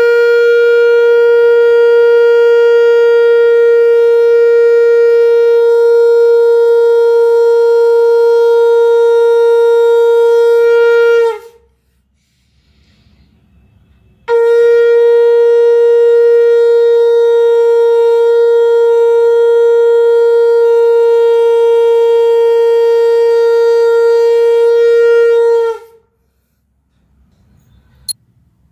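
Conch shell (shankh) blown in two long, steady blasts, each held about eleven seconds on a single pitch and dipping slightly as it ends, with a pause of about three seconds between them.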